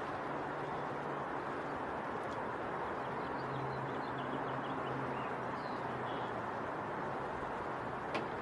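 Steady outdoor background noise with a faint low hum, a few faint bird chirps in the middle and a sharp click near the end.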